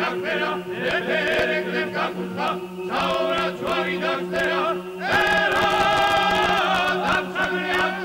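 Male choir singing a cappella in Georgian polyphonic style, the upper voices moving over a steady held bass drone. About five seconds in the voices swell into a loud sustained chord held for roughly two seconds, then move on again.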